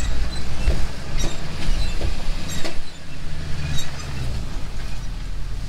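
Chevrolet Silverado pickup rolling slowly over a rutted dirt road, heard from inside the cab: a low engine hum with scattered knocks and rattles as the truck and its slide-in camper bounce over the ruts.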